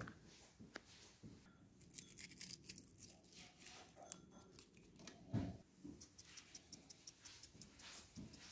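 A handheld spice grinder, most likely for black pepper, being twisted over the sandwich filling, giving a faint run of quick, even clicks several times a second in the second half. Earlier there is a brief patch of crisp crackling as dried herbs go on, and a single dull thump about halfway.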